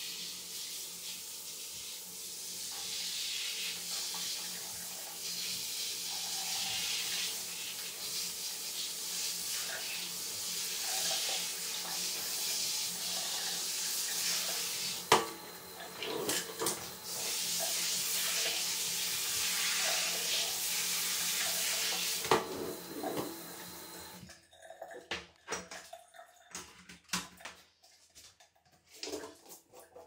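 Handheld shower sprayer spraying water onto a plastic dehumidifier filter grille on a tiled shower floor, a steady hiss of spray. A few sharp knocks about halfway through as the plastic filter is flipped over. The spray shuts off well past halfway, leaving scattered light clicks as the filter is handled.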